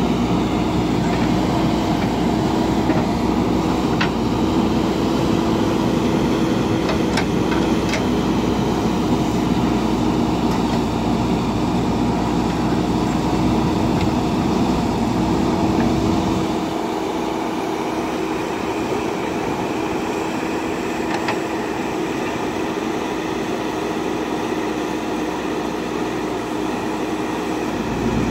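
Diesel engine of a JCB backhoe loader running steadily as it works, with a few short knocks in the first half. About two-thirds of the way through, the deep low end falls away and it becomes a little quieter.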